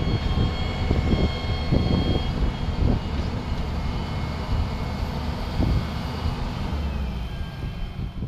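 Challenger MT775E crawler tractor's diesel engine running with a steady low rumble, a faint high whine above it, and a few knocks in the first three seconds.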